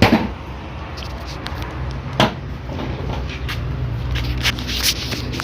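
A few sharp knocks and clicks from working on a washing machine's casing and parts while a screw is being undone, the loudest right at the start and another about two seconds in, over a steady low background hum.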